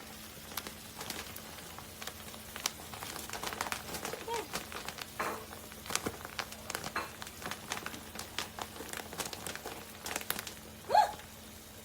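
Plastic bag of shredded mozzarella crinkling as it is handled and the cheese is shaken out over a pan, a run of faint, irregular crackles. A brief vocal sound near the end.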